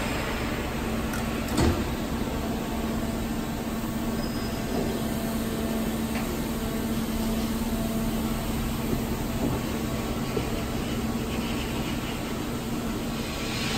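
1998 OM TMS 25x50N NC vertical lathe powered up and humming steadily, with a single short knock about two seconds in.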